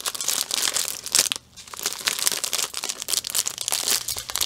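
Plastic packaging of a diamond painting kit crinkling and rustling as hands handle the wrapped canvas and a plastic bag of drill packs. There is a brief pause about a second and a half in.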